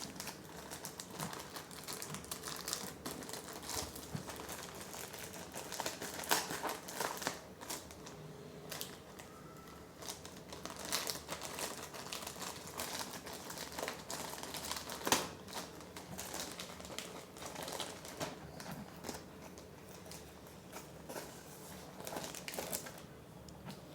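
Tamper-proof courier package being handled and opened: irregular crinkling and rustling with sharp crackles, the loudest about 15 seconds in.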